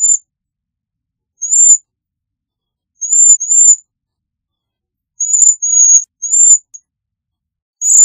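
Cedar waxwing giving its high, thin, whistled calls, singly and in quick pairs and threes, with silence between. A longer, drawn-out call begins near the end.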